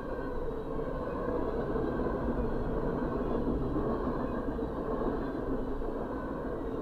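Freight train of boxcars rolling steadily past at a grade crossing, a continuous noise of wheels on rail heard from inside a car.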